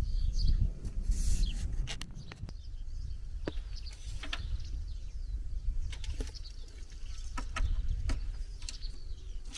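Scattered bird chirps over a low rumble, with a few sharp clicks; the rumble is strongest for the first couple of seconds.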